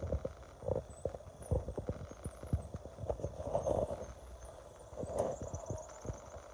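Irregular dull thumps and rubbing on a phone's microphone as the phone is handled and moved, coming thick at first and thinning out toward the end.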